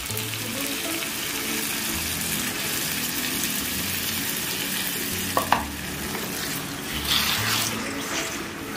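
Chicken and masala sizzling in a kadai as water is poured in and stirred with a spatula. A short clink about five seconds in, and a brighter hiss a couple of seconds later.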